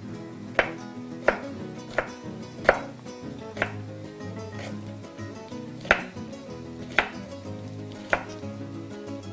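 Kitchen knife chopping on a wooden cutting board: about eight sharp, unevenly spaced strokes, over soft background music.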